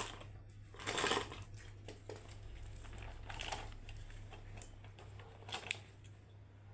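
A few short bursts of rustling and handling noise, a couple of seconds apart, as spare parts and their packets are rummaged through, over a steady low electrical hum.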